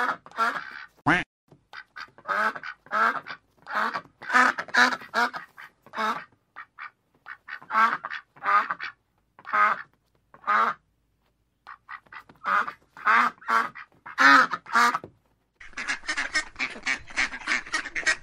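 A duck quacking in repeated runs of short, nasal calls, with brief pauses between runs. Near the end comes a faster string of quicker, softer quacks.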